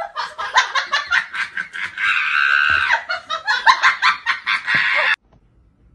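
Hard, high-pitched laughter in rapid bursts, with a long squealing stretch in the middle; it cuts off suddenly a little over five seconds in.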